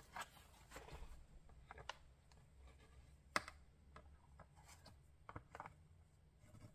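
Very quiet rustling of paper and thread as embroidery thread is pulled through punched holes in a paper journal page, with one sharp click a little past the middle.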